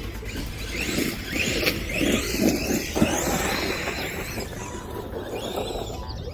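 Redcat Shredder 1/6 RC monster truck's brushless electric motor whining up and down in pitch several times as it is driven, busier in the first half and easing off later.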